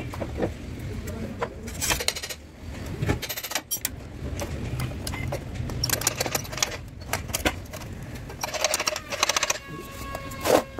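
Metal clinks, knocks and scraping from hands and tools working on a bare four-cylinder engine block being stripped, with several short rattling scrapes and a sharper knock near the end.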